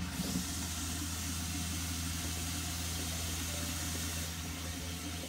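An RV's fresh-water pump runs with a steady low hum while the hot-water tap of a bathroom sink runs full, water splashing into the basin. The pink antifreeze is being flushed out of the hot line as the trailer is de-winterized.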